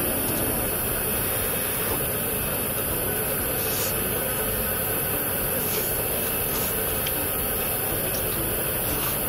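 Steady hiss and low rumble of a portable gas stove's burner running under a pot of stew, at an even level.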